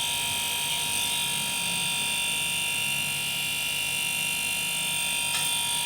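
Refrigerator freezer compressor running steadily, a constant electric hum with a fixed high whine. It has just been refilled with oil and is left running to lubricate the piston.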